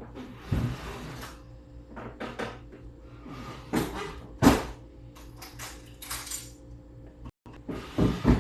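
Kitchen handling noises: cupboard doors and dishes knocking and clattering as things are moved about, several separate knocks with the loudest about four and a half seconds in, over a low steady hum.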